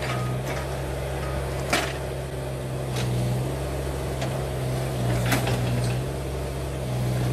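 Kubota mini excavator's diesel engine running steadily as the machine works its way off a trailer, the sound swelling a little a few times as the hydraulics take load, with a few short sharp knocks.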